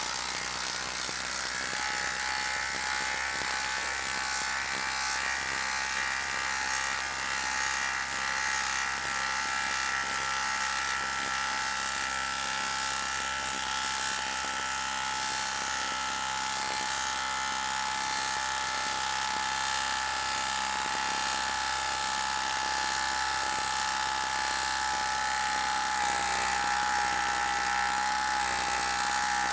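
Makita 12-volt brushless impact driver hammering steadily under heavy load as it drives a 6-inch, half-inch lag screw into a log round, its pitch holding even without letup and stopping abruptly at the end.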